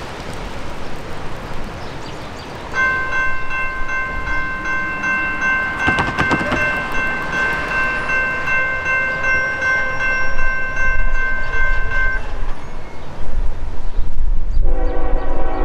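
Grade-crossing warning bell ringing in quick, even strokes for about nine seconds as the gates come down, then stopping. Near the end the approaching freight locomotive's air horn starts blowing a chord, over a growing low rumble.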